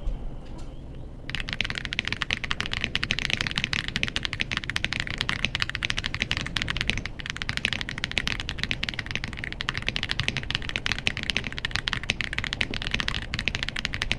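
Fast typing on an Aula F65 mechanical keyboard with Greywood V3 linear switches: a dense stream of keystrokes that starts about a second in, with a brief pause midway.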